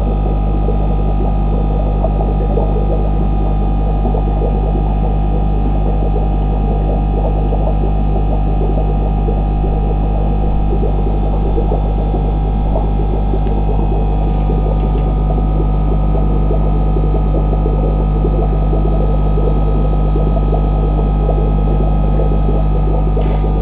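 Steady low electrical hum with a dense crackling hiss over it, from aquarium equipment running; it holds level throughout.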